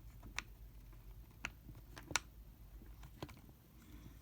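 Four sharp plastic clicks as multimeter test-lead probes are pushed and snapped into their holders on the meter's body, the loudest a little past halfway.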